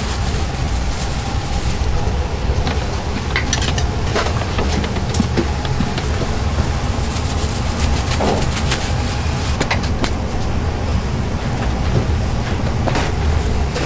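Minced meat being kneaded and squeezed by a plastic-gloved hand in a metal bowl, with irregular wet squelches and clicks. A steady low machine rumble runs underneath and is the loudest sound.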